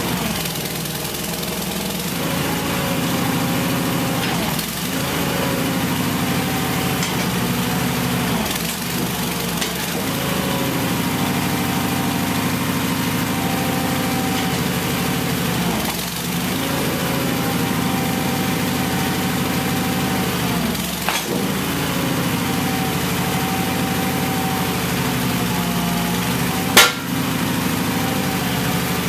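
Homemade backhoe's engine-driven hydraulic pump running steadily while the control valves are worked, the tone dipping and shifting every few seconds as the boom and bucket move. One sharp knock near the end.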